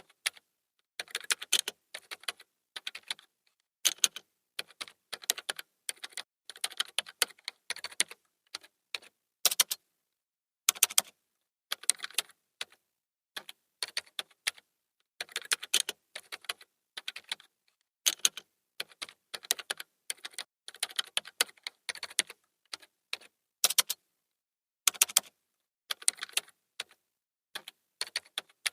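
Typing on a computer keyboard: irregular runs of quick key clicks with short pauses between bursts.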